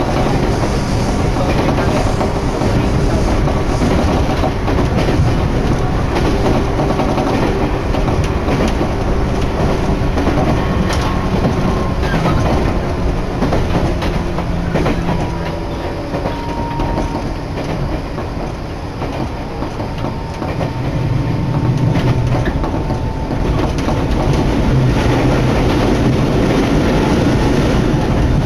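Running noise heard inside an electric commuter train on the move: a steady rumble of wheels on rail with a faint steady whine. The noise eases for a few seconds past the middle, then builds again.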